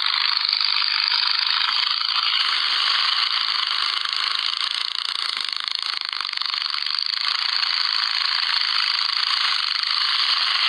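A small engine running steadily, heard as a thin, tinny noise with no low end.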